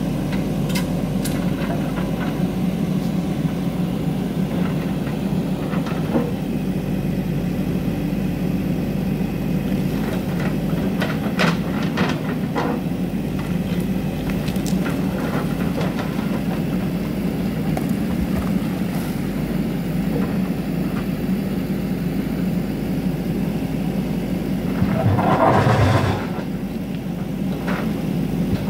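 JCB 3DX backhoe loader's diesel engine running steadily under load as the backhoe arm pushes large rocks, with occasional knocks and scrapes of rock on rock. Near the end comes a louder, rough grinding rush as a big rock slab slides and breaks down the slope.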